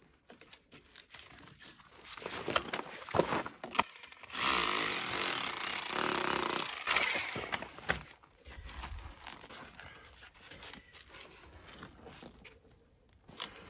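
Corded electric rotary hammer running for about three seconds, its bit chipping mortar from between granite stones. Before and after it come irregular knocks and scraping of loose stone and rubble being picked out by hand.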